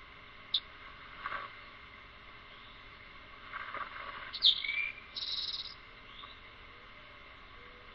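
Wild birds calling: scattered short, high chirps, the loudest a sharp falling chirp about halfway through, followed by a brief buzzy call.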